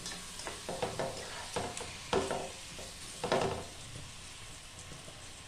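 Marinated chicken sizzling in hot oil in a kawali (wok) as it is sautéed, with the utensil scraping and knocking against the pan several times in the first three seconds or so; after that the sizzling goes on steadily.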